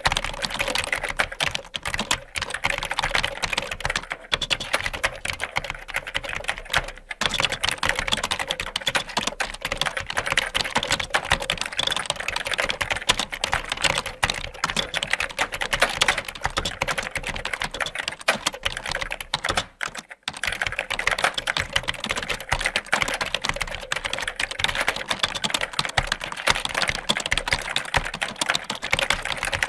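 Fast typing on a computer keyboard: a dense, continuous run of key clicks, broken by a few short pauses, the longest about twenty seconds in.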